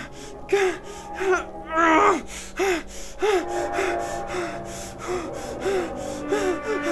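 A man's panicked, sobbing gasps, short voiced breaths about two a second, over a faint sustained music drone.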